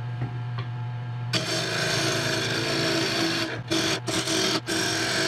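Harbor Freight benchtop mini wood lathe running with a steady hum. About a second in, a bowl gouge starts cutting into the small spinning teak bowl, a loud rough scraping hiss of wood being hollowed out. The cut breaks off briefly a few times near the end as the tool comes off the wood.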